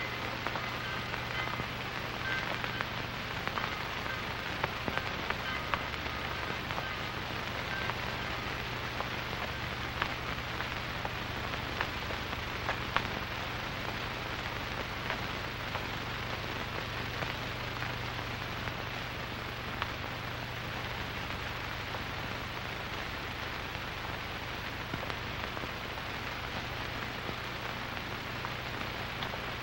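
Steady hiss and crackle of an old film soundtrack, over a low steady hum, with faint held high tones in the first several seconds that then die away.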